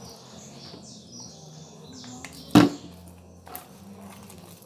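Sticky homemade slime being kneaded and pulled by hand, with a sharp click about two and a half seconds in and a softer one about a second later.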